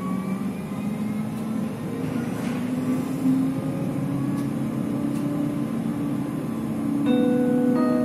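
Tram running along the rails, heard from inside at the front: a steady rumble of wheels on track, with the electric drive's whine gliding up in pitch during the first couple of seconds. A brief pitched tone sounds about seven seconds in.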